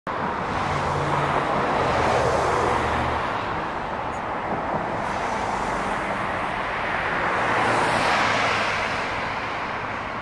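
Street traffic: a steady wash of tyre and engine noise from passing cars, swelling about two seconds in and again near eight seconds, with a low engine hum under it for the first three seconds.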